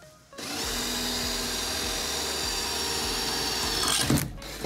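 Cordless drill boring a hole through a wooden frame strip into the bus's sheet-metal wall. The drill starts about half a second in and runs steadily with a high whine, surges briefly near the end, then stops.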